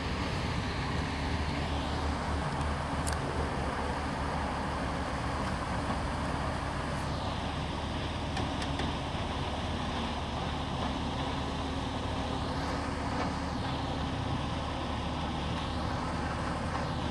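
Steady engine drone of a river passenger ship under way, with water rushing along its hull. Over it, the outboard motors of small motorboats running alongside whine, their pitch rising and falling a few times.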